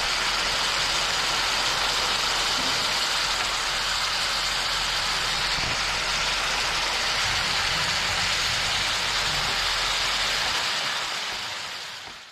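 Bird and squirrel meat stir-fried with lemongrass and chili sizzling steadily in a frying pan, fading away near the end.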